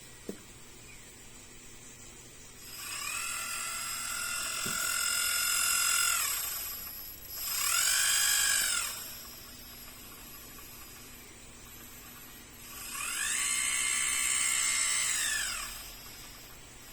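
A small high-speed motor whining as it spins up and winds down three times, each run a short rise and fall in pitch, the middle one shortest.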